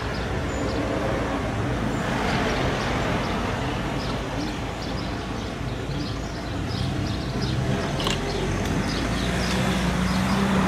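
City traffic: the engines of a queue of cars idling and creeping alongside, a steady low hum under road noise.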